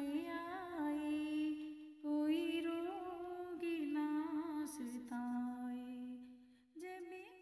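A woman humming a slow devotional tune without words, one voice on long, wavering held notes, with a short break about two seconds in and fading out near the end.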